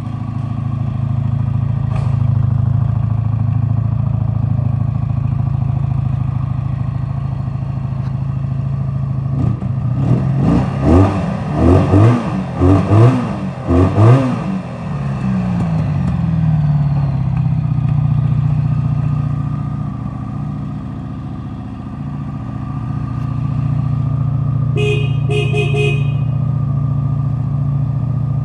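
1985 Honda VF1100C V65 Magna's V4 engine idling steadily, then revved in a quick series of throttle blips before settling back to idle. Near the end the horn sounds briefly in a few short pulses.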